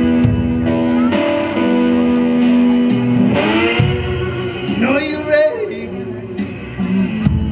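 Live blues played on a resonator guitar with a drum kit: held, ringing guitar notes over regular drum and cymbal hits.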